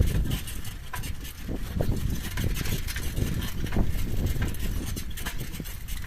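A wheel squeaking as a vehicle rolls along: short, irregular squeaks over a low rumble and scattered clicks.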